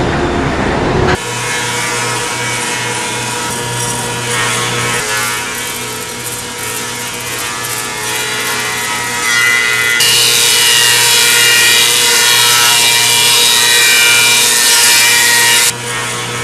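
Woodworking machinery running with a steady hum. From about ten seconds in, a saw cuts through wood, louder and hissing, for about six seconds before stopping abruptly.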